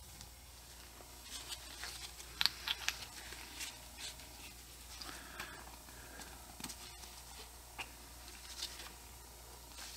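Faint scattered clicks and taps of small brake parts being handled as a wheel cylinder piston and spring are worked into the cylinder bore, a few sharper clicks about two and a half seconds in, over a low steady hum.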